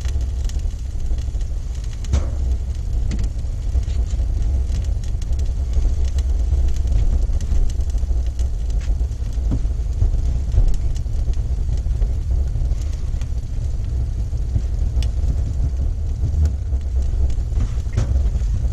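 Steady low rumble with occasional light clicks and taps.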